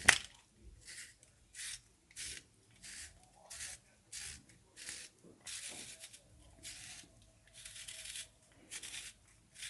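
Cucumber being twisted through a handheld spiral vegetable sharpener, shaving off a thin ribbon for a garnish rose: a dry rasping scrape with each turn, about two strokes a second. A sharp click at the very start is the loudest sound.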